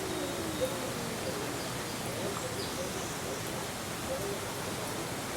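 Indistinct chatter of many distant voices over a steady background hiss, with one small click about half a second in.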